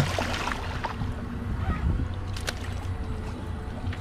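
Boat engine running at idle, a steady low hum, under wind and water noise with a few faint clicks.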